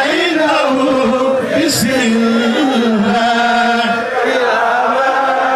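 A man reciting the Quran in the melodic Ilorin style, holding long notes that bend and waver in pitch.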